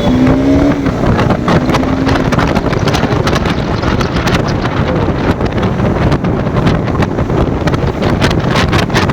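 Wind buffeting the microphone of a moving motorcycle, a loud, uneven rushing over the bike's running engine and road noise.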